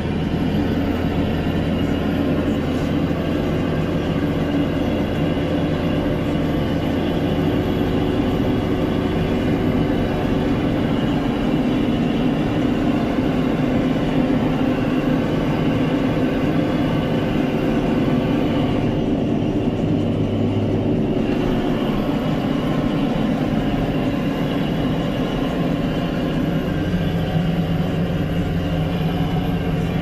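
Fendt 924 Vario TMS tractor's six-cylinder diesel running steadily under load at roughly 1,600 to 1,900 rpm while pulling a deep-loosening subsoiler, heard from inside the cab.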